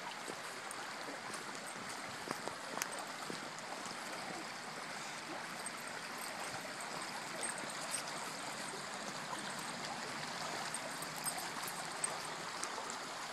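A small woodland stream flowing steadily, with a few faint clicks over it.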